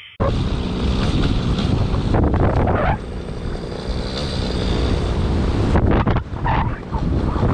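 Air Conception paramotor's engine and propeller running in flight, with wind buffeting the microphone. The level dips briefly about three seconds in and again near six seconds.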